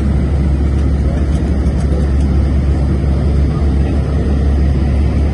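Steady low rumble and road noise of a moving vehicle, heard from inside an airport apron bus as it crosses the tarmac.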